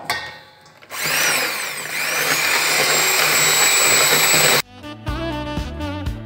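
Electric hand mixer switched on about a second in, its whine rising as the motor spins up, then running steadily as the beaters whisk eggs and brown sugar in a steel bowl; it cuts off suddenly after about three and a half seconds. Jazz music with a saxophone follows.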